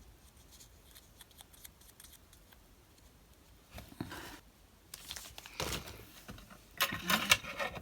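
Scissors cutting card stock, with the paper pieces rustling as they are handled. Small ticks in the first half, then a few short bursts of cutting and rustling in the second half, loudest near the end.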